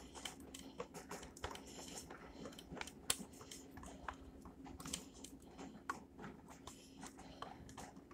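Block of cheddar cheese being shredded on a metal box grater: a faint run of irregular scraping strokes, with one sharper click about three seconds in.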